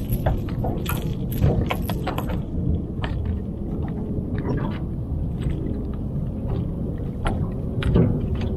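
Steady low rumble of open water around a small fishing boat, with scattered light clicks and rattles of fishing tackle as a float is clipped onto a line.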